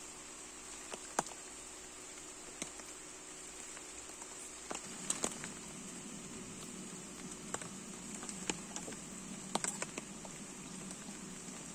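Light rain: scattered drops tapping irregularly over a steady high hiss, with a low hum coming in about five seconds in.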